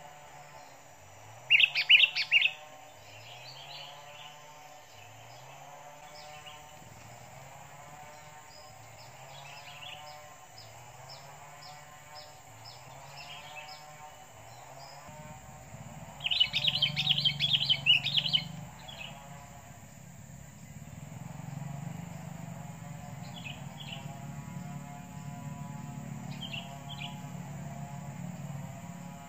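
Sooty-headed bulbuls calling in a confrontation between a decoy bulbul and wild ones: two loud bursts of rapid chattering, about two seconds in and again around sixteen to eighteen seconds, with scattered short chirps between. A steady high-pitched drone runs underneath, and a low hum joins about halfway.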